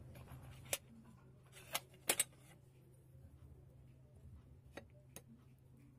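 A steel spoon clinking against a glass bowl and plate: four sharp clinks in the first two and a half seconds, the loudest a close pair, then two lighter ones near the end, over a low steady hum.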